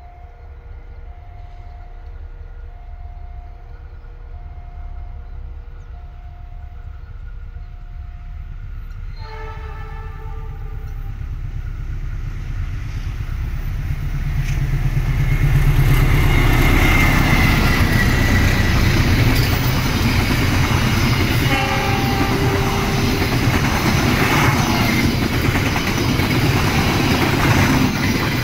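A CC206 diesel-electric locomotive hauling twelve stainless-steel coaches approaches and runs through at speed. Its rumble builds steadily, it sounds its horn about nine seconds in and briefly again later, and from about fifteen seconds the passing coaches' wheels clatter loudly over the rails. For the first nine seconds a two-tone warning signal repeats about once a second.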